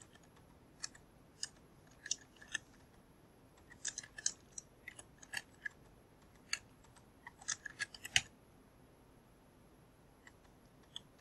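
Faint computer keyboard typing: short irregular runs of key taps as numbers are entered, stopping a little after the middle, with one lone click near the end.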